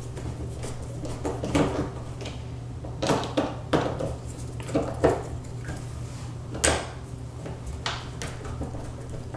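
Screwdriver tightening the Phillips set screws on a privacy door lock's trim, with irregular small metal clicks and scrapes and one sharper click about two-thirds of the way through.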